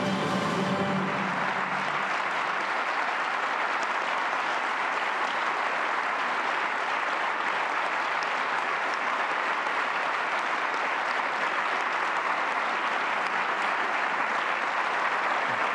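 Large audience giving a standing ovation: sustained, dense applause. The last of the orchestral music fades out in the first second or so.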